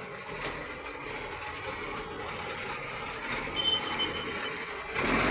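Steady mechanical noise, with a short high-pitched beep about three and a half seconds in and a louder burst of noise near the end.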